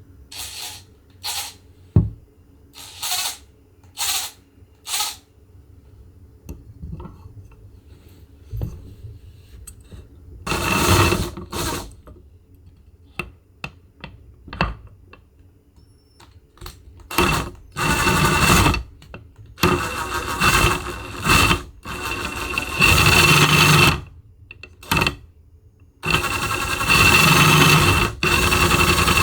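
Meshed metal gears spun up in a series of short bursts, then in longer runs from about seventeen seconds in, the longer runs carrying a steady high gear-mesh whine.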